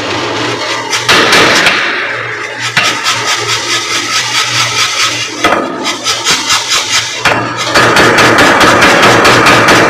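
Power hammer with its motor running in a steady hum while the ram strikes a steel bar between flat dies in repeated blows. The blows come scattered at first, then from about eight seconds in turn into a fast, continuous run of several blows a second.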